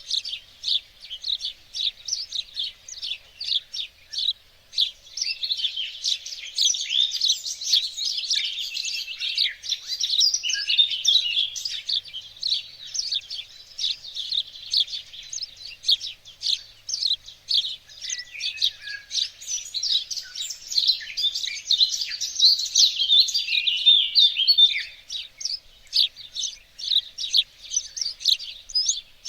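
Garden songbirds singing and chirping together in a dense, continuous chorus of quick high notes and short trills.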